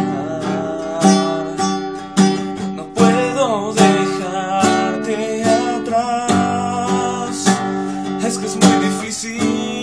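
Acoustic guitar strummed in a steady rhythm, a strong stroke a little under once a second, with a man's voice singing along.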